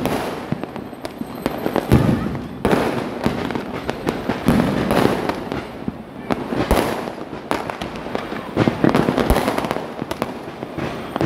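Fireworks and firecrackers going off repeatedly: a string of sharp bangs, louder ones every second or two, over continuous crackling.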